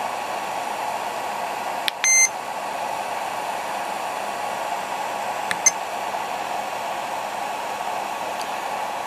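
Battery charger's cooling fan running with a steady hiss. About two seconds in there is one short electronic beep as a button is pressed to stop the discharge, and a faint click-chirp from another button press follows about five and a half seconds in.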